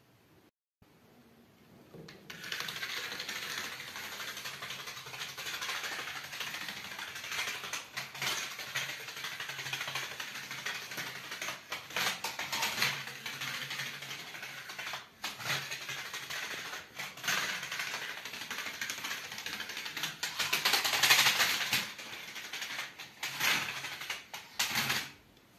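Matchboxes standing on end toppling in a long domino chain on a wooden floor: a fast, continuous clatter of small boxes tapping onto one another. It starts about two seconds in, dips briefly a few times, is loudest past the middle and stops just before the end.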